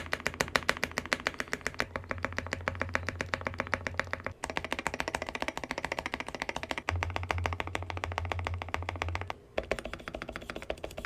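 Fast typing on a KBDfans KBD67 Lite mechanical keyboard with lubed Gateron Yellow Pro linear switches and Cherry-profile dye-sub keycaps: a rapid, unbroken run of key clacks, with brief pauses about four and a half and nine and a half seconds in.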